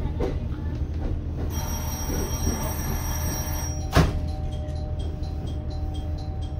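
ET122-1000 series diesel railcar heard from its front cab while running slowly over pointwork: a steady low engine and running rumble, with a high, steady tone for about two seconds. About four seconds in there is a single sharp clunk, followed by light, regular ticking.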